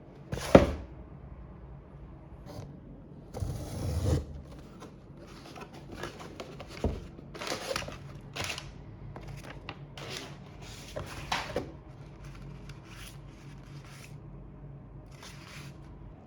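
A parcel being handled and opened: cardboard packaging knocked, rubbed and rustled. There is a sharp knock about half a second in, a longer scraping rustle around four seconds in, then a string of short rustles and clicks.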